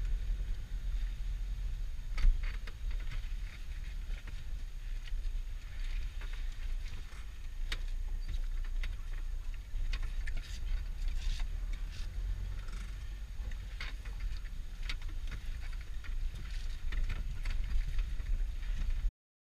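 Vehicle driving over a rough, hail-covered dirt track, heard from inside the cab: a steady low rumble with scattered clicks and knocks, one louder knock about two seconds in. The sound cuts off abruptly near the end.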